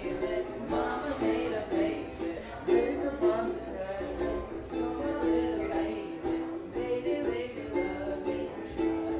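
Acoustic guitar played by hand, chords strummed and picked in a repeating pattern.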